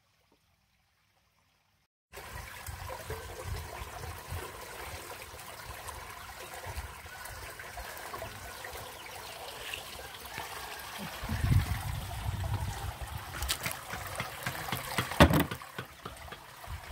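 Water trickling and splashing after about two seconds of near silence. A low rumble swells midway, and a couple of sharp knocks come near the end.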